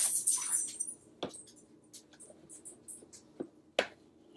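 A brief scratchy rustle, then a few scattered light clicks and taps as a parrot handles and pecks at a hard object.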